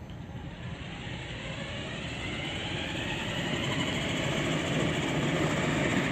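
Motorized remote-control cooler loaded with 50 pounds driving over the ground: a steady rumble of its drive and rolling wheels, growing louder.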